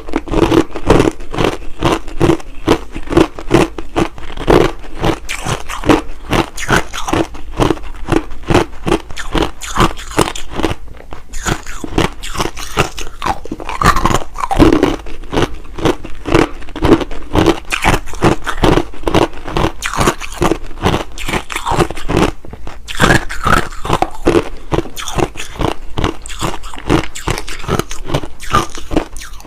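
Close-up crunching of hard crushed ice being bitten and chewed, a rapid run of sharp cracks, several a second, with no pauses.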